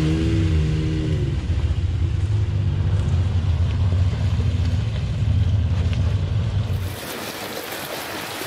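Side-by-side UTV engine revving as the machine pulls away, then settling into a steady low running note. About seven seconds in, it cuts abruptly to a steady rushing noise of wind and river water.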